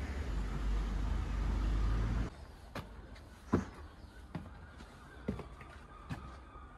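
Wind buffeting the microphone as a low rumble for about two seconds, then it cuts off abruptly. After that come walking footsteps on a stone and cobbled floor, about one step a second, the loudest about halfway through.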